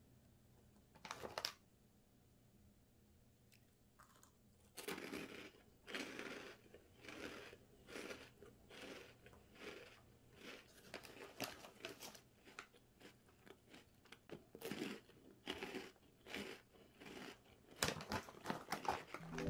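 Crunchy Oksusukkang corn puffs being bitten and chewed, one or two crunches a second after a short pause. The foil snack bag crinkles about a second in and again near the end.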